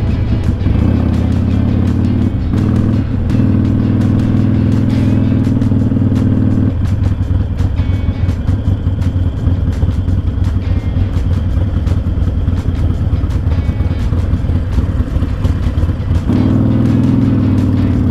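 Harley-Davidson Sportster 1200's air-cooled V-twin running as the bike rolls along, then idling with a lumpy beat while stopped at a traffic light from about seven seconds in, and picking up again near the end.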